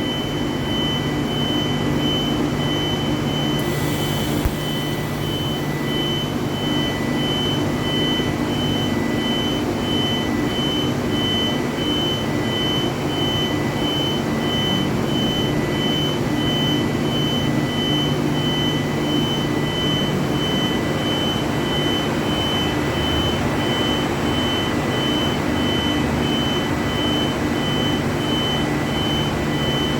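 Argon (TIG) welding in progress: a constant buzzing hiss from the arc and welding machine, with a thin steady high whine over a low hum.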